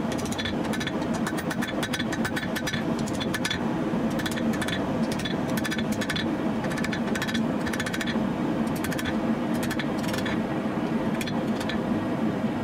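Hand hammer striking a hot 1095 high-carbon steel knife blank on an anvil, the blows coming in quick runs of several strikes, over a loud steady mechanical roar.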